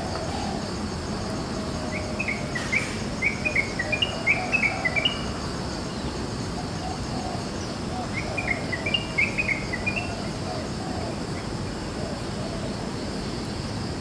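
Yellow-vented bulbul (trucukan) singing: two phrases of quick, bubbly chirped notes, the first about two seconds in and the second about eight seconds in, over a steady high-pitched insect drone.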